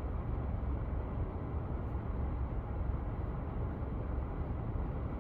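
Steady low rumble inside the cabin of a petrol car idling at a standstill.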